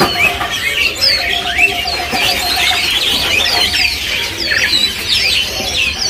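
Many caged songbirds chirping and calling at once: a dense, overlapping chorus of short high notes, with a lower run of quickly repeated notes from about one to three seconds in.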